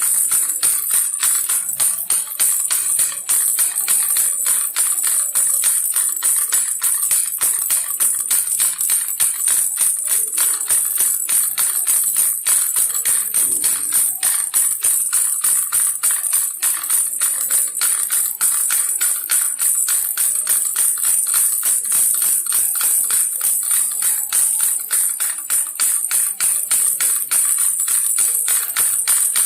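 Baby rattle toy shaken steadily and quickly, giving a continuous high jingling rattle.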